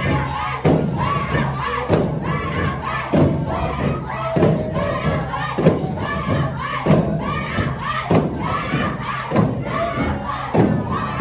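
Group of voices singing a Kaura song together, with madal hand drums beating a steady rhythm underneath.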